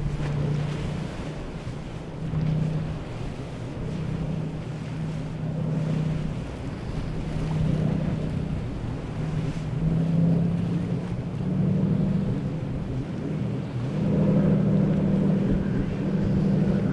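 Flybridge motor yacht under way, its engines giving a steady low drone over the rush of its bow wave and wake. The engine note rises slightly and gets louder over the last few seconds as the yacht passes.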